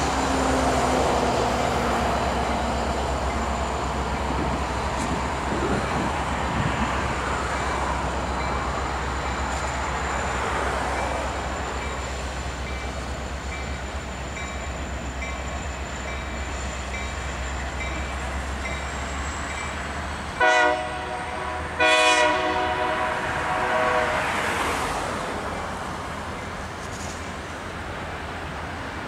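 BNSF coal train rolling past, its hopper cars making a steady rumbling noise. About two-thirds of the way in, a train horn sounds twice: a short blast, then a longer one.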